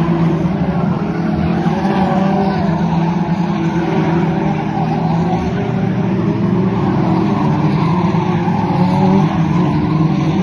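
F2 stock car engine running hard and steady under race load, with a wavering higher whine over a strong low drone.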